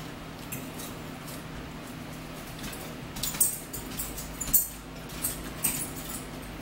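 Eating sounds at the table: chewing of fries and toast with mouth smacks, bunched into a run of short crackly clicks between about three and six seconds in.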